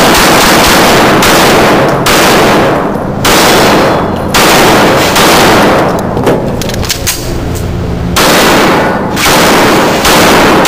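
Pistol shots fired in quick strings during a practical shooting stage, each blast very loud and echoing in an enclosed indoor range. A lull with only small clicks and knocks comes about two-thirds of the way through, then the shooting resumes.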